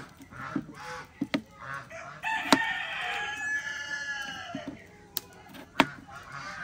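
A rooster crowing once: one long call beginning about two seconds in, rising and then falling in pitch. A few sharp knocks sound around it.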